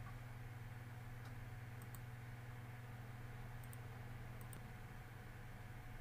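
Computer mouse clicking faintly a few times, in close pairs about two seconds in, near four seconds and again a little later, over a steady low electrical hum.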